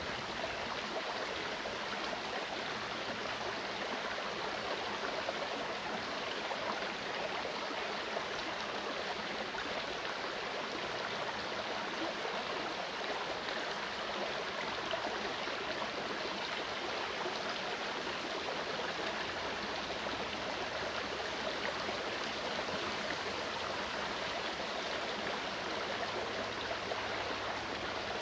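A clear mountain stream running over rocks, a steady rushing and gurgling of water.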